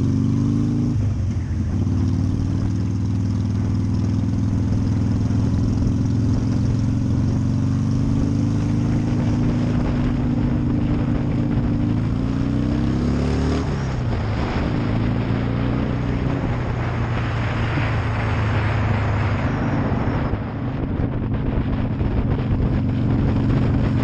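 Harley-Davidson V-twin motorcycle engine running under the rider, its pitch climbing and falling with the throttle and dropping sharply about 14 seconds in. Wind and road noise rush over the helmet-mounted microphone.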